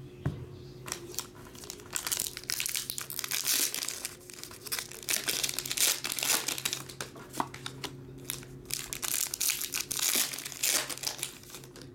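Foil or plastic card-pack wrapping crinkling and tearing as a pack is opened by hand, in irregular crackling bursts from about a second in until near the end.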